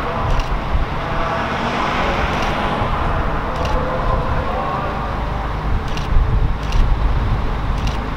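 V/Line Vlocity diesel railcar approaching slowly, its underfloor diesel engines giving a steady drone with a faint whine. A few faint sharp ticks sound over it.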